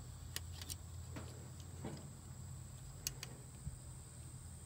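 Faint scattered clicks and light rattles of alternator wiring and a plastic plug being handled and pushed into place by hand, over a low steady background hum.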